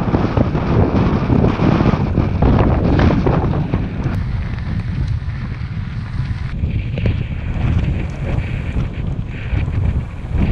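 Wind buffeting the microphone of a camera on a moving road bike, a loud, low rumbling noise. It is heavier for the first four seconds or so, then eases.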